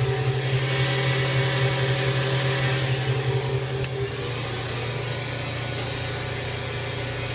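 Fadal VMC2016L CNC vertical machining center running its spindle at speed: a steady hum with a few steady tones over a hiss. About four seconds in, the hum shifts and drops a little in level.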